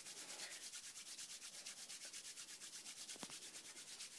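Two hands rubbing briskly against each other, skin on skin, in a fast even rhythm of roughly nine strokes a second, as a hand-warming exercise.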